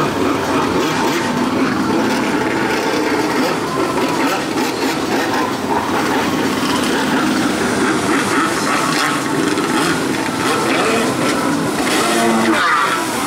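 Stand-up jet ski engine running and revving, its pitch rising and falling with the throttle, along with the rush of water and spray from the hull as it turns.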